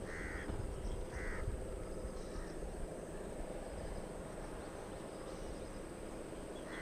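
A crow cawing, with two clear caws near the start, a fainter one a little later and another at the very end, over a steady low background noise.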